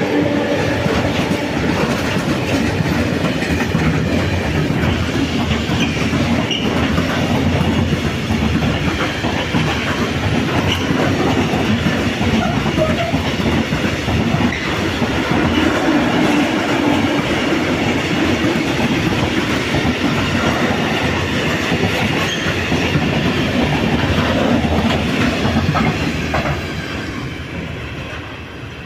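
A train passing close by, its wheels running on the rails in a loud, steady rush that fades away in the last few seconds. The last of a horn note dies out at the very start.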